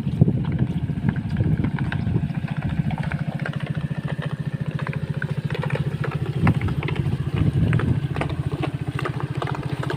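Small engine running steadily, putting out a fast, even beat, with a few light clicks and knocks over it.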